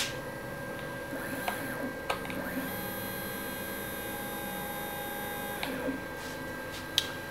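Stepper motor of a small CNC mill jogging the table, a steady whine of several tones that starts about two and a half seconds in and stops three seconds later. A few light clicks come before and after it, over a steady hum.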